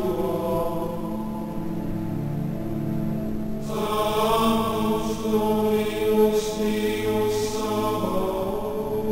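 Background music of slow chanting voices holding long, sustained notes like a choir. Brighter upper voices come in about three and a half seconds in.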